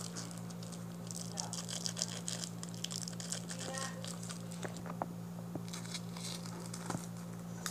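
Cellophane wrapping of a puzzle package crinkling as it is handled and snipped open with scissors, many small crackles and rustles over a steady low hum.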